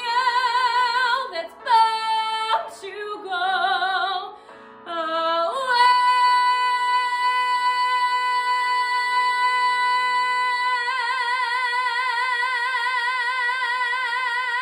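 A woman singing solo in a musical-theatre style: a few short phrases with wide vibrato, then from about five seconds in one long high belted note, held steady at first and taking on vibrato about halfway through.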